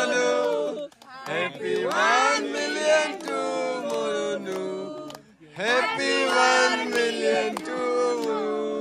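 Voices singing a celebration song in long held, gliding notes, in phrases broken by short pauses about one second in and about five seconds in.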